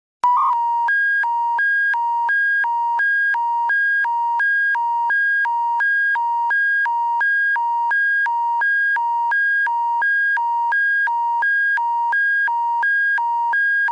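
Electronic two-tone emergency alert attention signal, the hi-lo warble that opens an Alberta Emergency Public Warning System bulletin. A lower and a higher tone alternate evenly, about three changes a second, and it starts abruptly.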